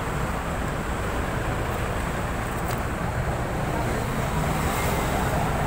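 Steady low rumble of road traffic and running vehicle engines, growing slightly louder near the end.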